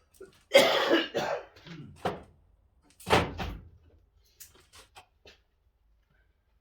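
A few loud knocks and thuds of metal parts being handled, the second with a deep thud, followed by several light clicks.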